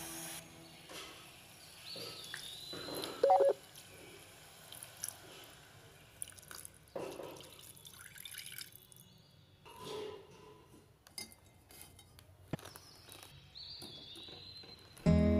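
Kitchen sounds of a steel spoon stirring and knocking in an aluminium pan, with one sharp clink about three seconds in. Water is poured into the pan from a jug and drips, and a few light knocks and clicks follow.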